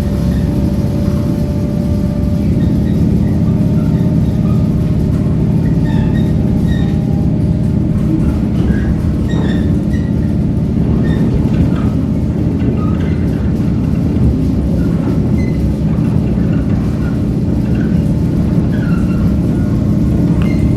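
Passenger train running on the rails, a steady low rumble, with faint short high tones scattered over it.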